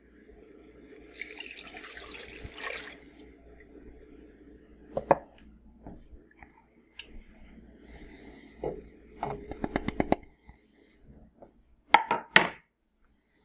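Half and half poured from a carton into a pot for a couple of seconds, followed by kitchen handling sounds: single knocks, a quick run of clicks, and three sharp knocks near the end, over a low steady hum.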